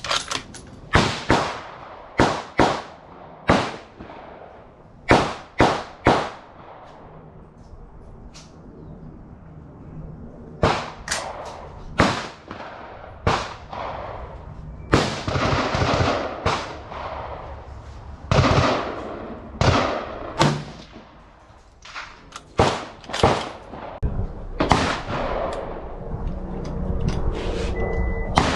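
Rifle gunshots: about two dozen sharp reports at irregular intervals, some in quick succession, each trailing off in a short echo.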